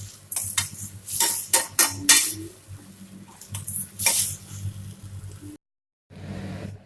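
A metal spoon scraping and knocking against a cooking pan as tomatoes with salt and spices are stirred, with a run of clatters in the first couple of seconds and another about four seconds in.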